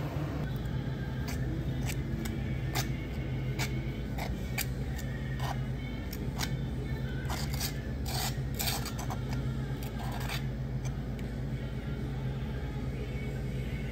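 Cafe counter work: a run of short clinks, taps and knocks from cups, utensils and containers being handled, over a steady low hum. The clatter thins out near the end.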